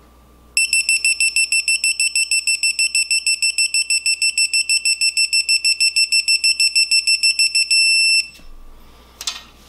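Digital torque wrench (Kobalt 1/2-inch) beeping rapidly, about six high beeps a second, as a bedplate bolt is turned through its 90-degree angle, then one steady tone for about half a second that marks the target angle reached, cut off sharply. A brief clatter of tool handling follows near the end.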